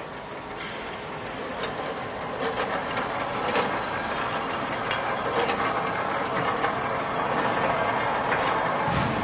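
Rotary bottle-filling machine running, its star wheels carrying flat glass bottles: a steady mechanical clatter with frequent small clicks and glass-on-glass clinks, growing gradually louder.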